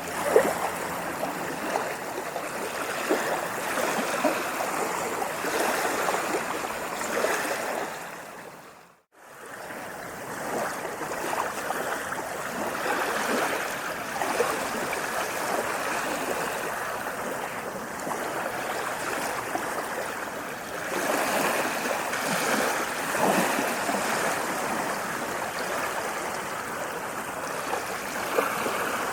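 Waves washing and splashing in a continuous rush of water that swells and eases. About nine seconds in it fades out to a moment of silence and then fades back in.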